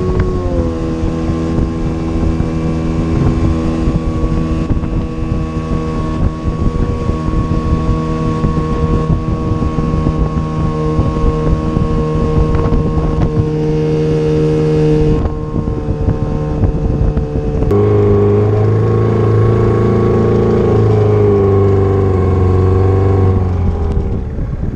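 Motorboat engine running steadily under way, loud and even. Its note shifts about 15 seconds in and changes again near 18 seconds to a heavier, lower-pitched running.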